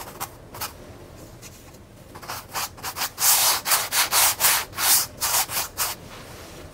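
Paintbrush scrubbing paint onto a stretched canvas in short back-and-forth strokes, about three a second, after a pause of a second or so near the start.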